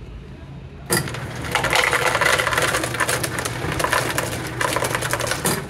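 Soda fountain ice dispenser dropping ice cubes down its chute into a paper cup: a dense clatter of cubes that starts about a second in and stops near the end, with a steady low hum under it while it runs.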